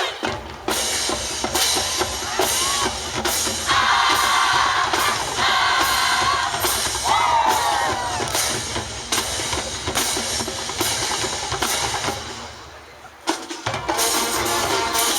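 Marching band drumline playing a cadence, with steady, evenly spaced bass and snare drum strokes. Near the end the drums drop away briefly and the full band comes in.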